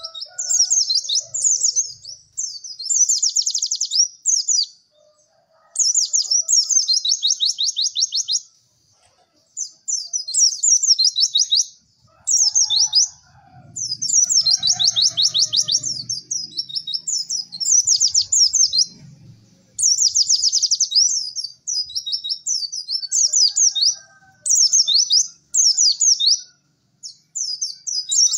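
White-eye (pleci) song: rapid, high-pitched chattering trills in phrases of one to two seconds, repeated with short pauses between them.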